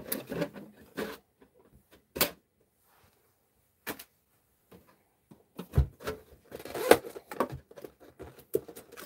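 Hands handling a translucent orange plastic VeeFriends booster box and reaching in for its packs: scattered clicks, taps and handling noises, with a couple of louder knocks a little over halfway through.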